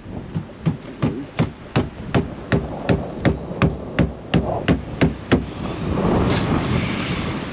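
A steady run of about fifteen sharp knocks, close to three a second, which stops about five seconds in and gives way to a rustling hiss.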